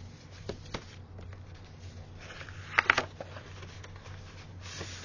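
Paper being handled: pages and paper props rustling and sliding, with a few sharp taps and a cluster of louder clicks about three seconds in.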